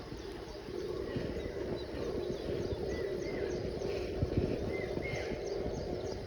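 Birds chirping: short, repeated high chirps, several a second, over a steady low rumble.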